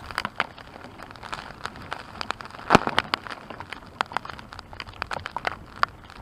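Heavy raindrops striking a hard surface close to the microphone: irregular sharp taps over a light hiss, with one louder hit about three seconds in.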